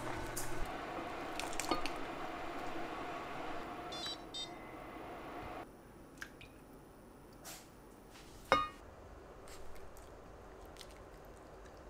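Pot of diced carrots boiling on the hob, stirred with a silicone spatula: a steady bubbling hiss with light taps against the pot. After about five and a half seconds it cuts to a quieter room, and a single sharp clink rings out past the middle.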